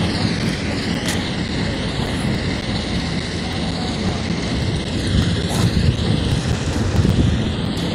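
Aircraft flying overhead: a steady rumble with a hiss that sweeps up and down in pitch.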